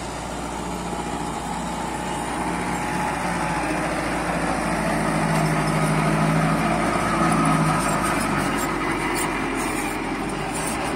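Kubota tractor's diesel engine running under load while its rotavator churns through the soil, a steady mechanical hum that grows louder through the middle and eases near the end, with some light ticking near the end.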